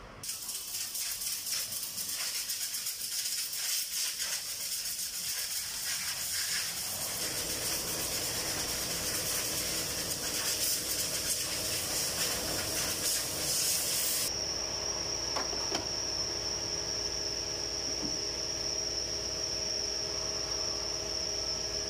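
A compressed-air blow gun hisses loudly in uneven blasts as it blows dust out of an Isuzu D-Max's dusty air filter element. About two-thirds of the way through the air stops suddenly, leaving a steady high whine over a low hum.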